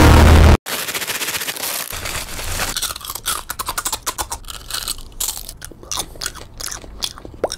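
Music cuts off suddenly just over half a second in, then close-up crunching as a crispy snack is bitten and chewed. The crunches come as a rapid crackle that turns into sparser, separate crunches toward the end.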